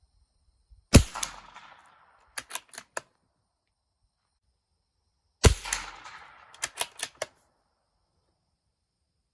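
Two shots from a CZ 457 Jaguar .22 LR bolt-action rifle, about four and a half seconds apart, each with a short echoing tail. A quick run of four clicks follows each shot: the bolt being worked to eject the case and chamber the next round.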